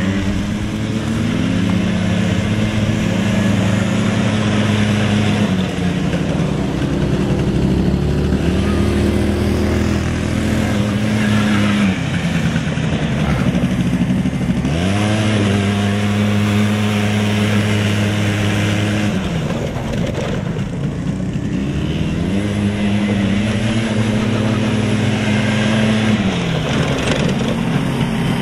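Small youth ATV engine running under throttle, holding steady revs for several seconds at a time, then dropping off and climbing back up three times as the quad slows and speeds up again.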